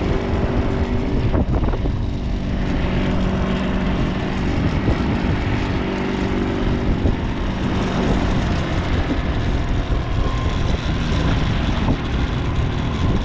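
Boat engine running steadily under a constant rumble of wind on the microphone; the engine's hum fades a little after about eight seconds.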